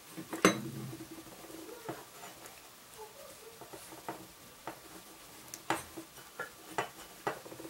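Hands handling a cheap plastic clamp terminal connector and a lamp cable's stripped wire, pushing the wire in and pressing the plastic clamp shut. These make scattered small plastic clicks and rustles, the sharpest about half a second in.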